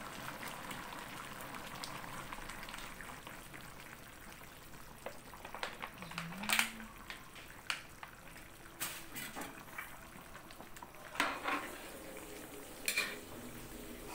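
Chicken curry with coconut milk simmering in a metal wok, a steady bubbling hiss, with scattered clinks and knocks of a metal ladle and utensils against the pan.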